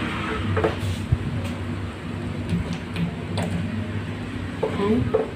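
Cubes of squash dropped by hand into a stainless steel pot of water: a few scattered soft knocks and plops over a steady low hum.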